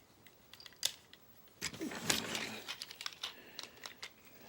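Plastic toy parts clicking and rattling as a transforming robot figure is handled and its pieces are fitted together, with a sharp click just under a second in and a busier run of clicks and handling noise from about a second and a half in.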